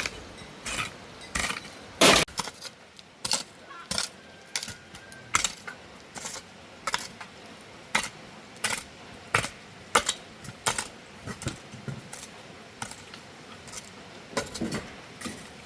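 A metal hand tool, such as a hoe or spade, striking and cutting into soil in a steady rhythm of short, sharp knocks and clinks, about three every two seconds. The loudest strike comes about two seconds in.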